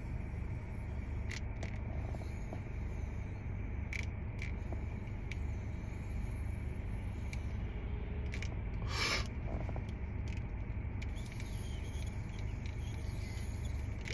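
Steady low rumble inside a car cabin while a man takes a long draw on a vape cartridge, with a few faint clicks and a short hiss about nine seconds in.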